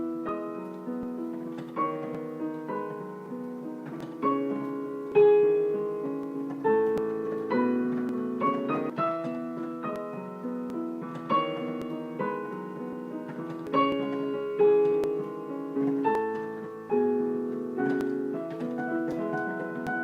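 Background piano music: a slow, gentle piece of struck notes and chords that ring and fade.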